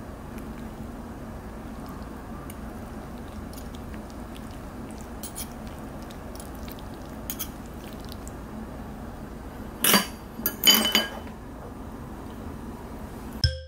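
Metal forks tapping and clinking against a frying pan while burrata is torn open over pasta: a few light clicks, then two louder clatters about ten seconds in, over a steady low room hum.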